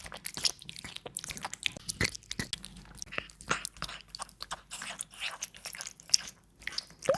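A cat eating, with quick, irregular crunching and chewing.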